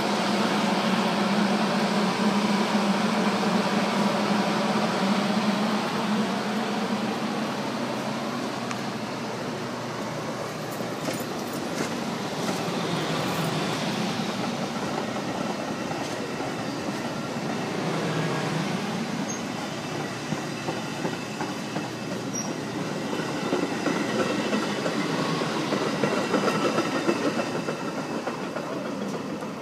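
Metra commuter train departing: stainless-steel bilevel passenger cars rolling past at close range on their steel wheels, with a steady low hum in the first few seconds. The cab car at the rear passes near the end.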